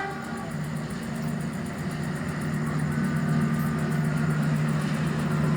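Diesel locomotive engine running with a steady low hum that slowly grows louder.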